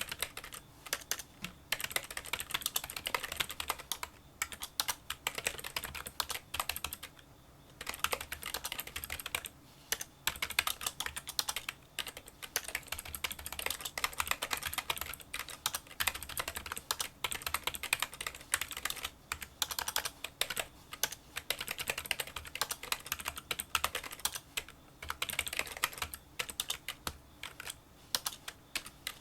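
Fast touch-typing on a Kinesis Freestyle split keyboard with membrane key switches: a quick, continuous run of light, small clicks, with a brief pause about seven seconds in.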